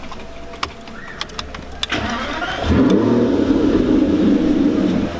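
Aston Martin Vanquish 5.9-litre V12 being started: a few clicks, then the starter cranks about two seconds in and the engine catches with a loud flare of revs, dropping back toward idle near the end.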